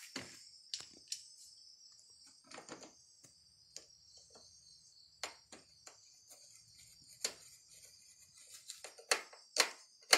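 Scattered clicks and taps of a screwdriver and plastic bodywork as a bolt is fitted on a motorcycle's side panel, with a few sharper clicks near the end. Crickets chirr steadily and high behind it.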